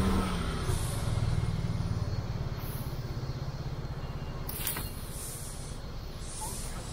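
Motor scooter engine running close by, its low hum strongest for the first couple of seconds and then fading into a steady street-traffic rumble. A single sharp click a little after halfway.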